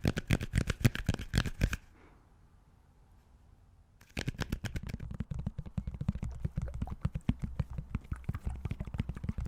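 Objects handled right against a microphone, making dense rapid crackling and tapping. It drops almost to silence for about two seconds near the start, then resumes with a heavier low rumble underneath.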